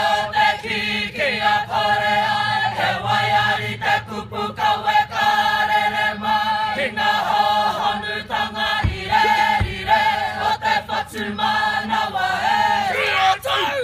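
Kapa haka group singing a Māori song together in chorus.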